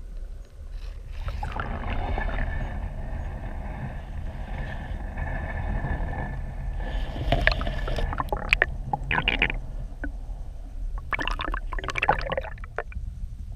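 Creek water flowing around a GoPro Hero 4 Black's underwater housing, heard muffled from below the surface: a steady low rumble with a rushing hiss, and short bursts of gurgling several times in the second half.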